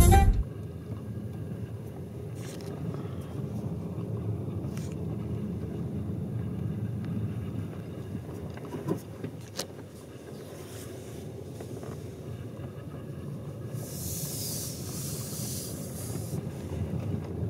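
Steady low road and engine hum of a 2020 Skoda Superb being driven slowly, with a few faint clicks and a brief hiss near the end.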